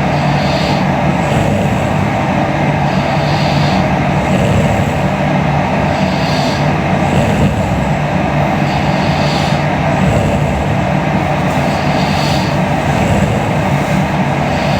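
A young woman snoring in her sleep, a breath about every three seconds, over a loud, steady rumbling noise.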